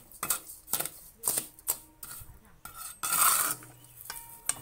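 A perforated steel skimmer stirring chickpeas through grey sand in a steel wok: short scrapes and clinks of metal on metal about twice a second, with one longer, louder gritty scrape about three seconds in.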